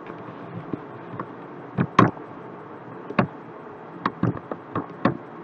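Computer mouse and keyboard clicks: about eight short, sharp clicks at irregular spacing, some in close pairs, over a faint steady background hiss.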